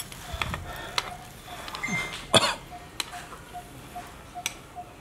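Eating at the table: metal chopsticks clicking against a wooden plate and food being chewed, with one short, loud cough about two and a half seconds in. A faint, regular tick repeats two or three times a second throughout.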